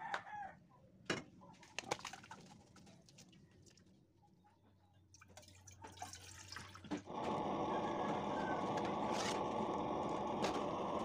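A few light knocks and clicks, then, about seven seconds in, a steady rushing of water poured from a plastic jug into a metal saucepan. It starts abruptly and is the loudest sound.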